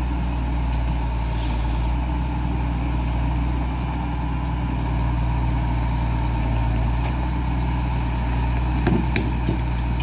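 Heavy diesel engine running at a steady idle. A short hiss of air comes about a second and a half in, and a few brief knocks near the end.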